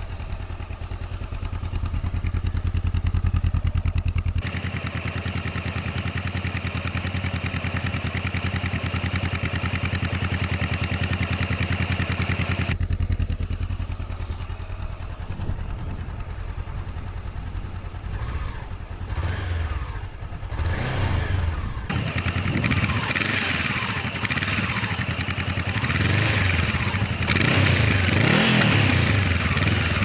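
Honda CB500F's parallel-twin engine through a Mivv GP aftermarket exhaust with its dB killer fitted, idling at first and then revved in repeated blips that rise and fall, climbing higher and louder toward the end. At low revs the note is deep and bass-heavy.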